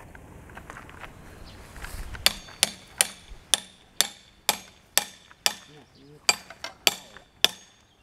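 Hammer striking a metal fitting on a concrete electricity pole: about a dozen ringing blows, roughly two a second, starting a little over two seconds in. The fitting is being driven into a mounting hole that is a bit too small, which the electrician puts down to an old-style pole not made to standard.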